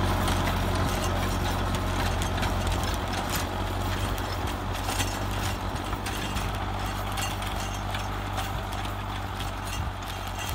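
Mahindra 605 Di-i tractor's diesel engine running steadily under load as it drives a gyrovator (rotary tiller) through dry soil, slowly growing fainter as the tractor moves away. Irregular light knocks and clicks sound over the engine hum.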